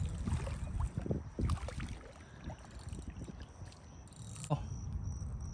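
A hooked fish splashing at the water's edge as it is pulled in to the bank, in short irregular splashes and knocks, with a brief louder scuffle about four and a half seconds in.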